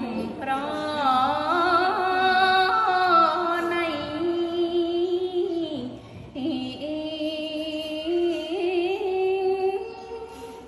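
A young woman chanting Khmer smot, the unaccompanied Buddhist verse recitation, in long drawn-out notes that waver and turn in pitch. One phrase ends about six seconds in and, after a short breath, the next begins.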